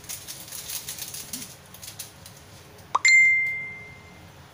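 Packaging rustling as it is handled, then about three seconds in a single sharp clink of a kitchen utensil against a dish, ringing on a clear tone and fading over about a second.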